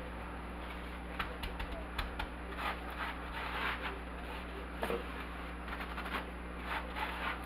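Faint clicks and short rustles of hands handling a batter bowl and whisk on a counter, over a steady low hum.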